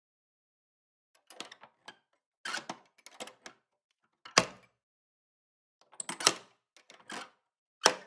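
Wooden door: short latch and handle clicks and rattles, then sharp door-shutting knocks. The loudest, a heavy shut, comes about four and a half seconds in. More clicks and shuts follow after six seconds and just before the end.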